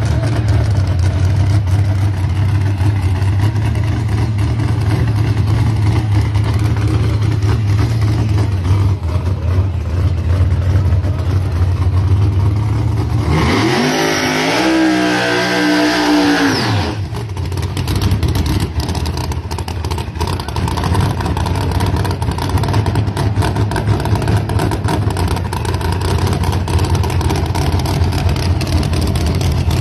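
Drag-race car engines running loudly. About halfway through, one engine revs, its pitch rising and then falling over about three seconds.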